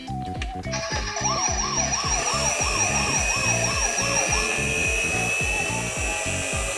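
Toy ambulance's electronic siren, starting under a second in and warbling up and down about twice a second, then carrying on as a steady tone, over background music with a steady beat.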